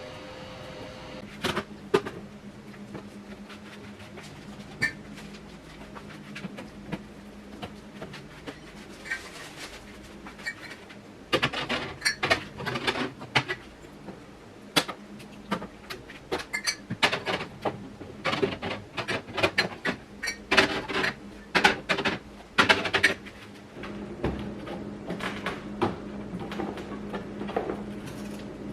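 Irregular clicks, knocks and clatter of household objects being handled and set down, busiest in the second half, over a steady low hum.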